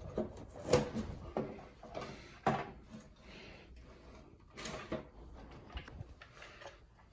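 Hard plastic knocks and clicks from handling a bathroom exhaust fan's housing, motor assembly and wiring harness plug: a handful of separate knocks with small rattles between, dying away near the end.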